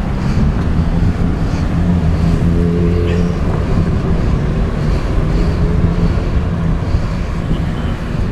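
Wind rushing over a handlebar-mounted camera's microphone while a road bike rides along a street, with car traffic alongside.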